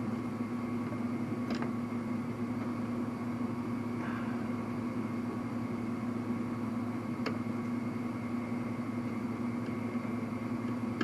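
A steady low mechanical hum in a small garage, with two faint sharp metal clicks from working a wrist pin circlip into its groove on a two-stroke piston.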